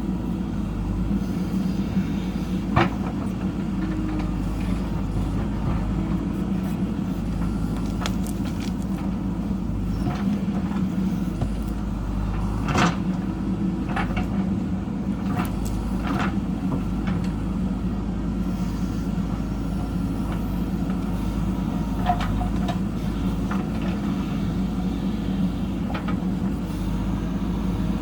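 Diesel engine of a JCB backhoe loader running steadily at work, with occasional sharp knocks, the loudest about 3 s and 13 s in.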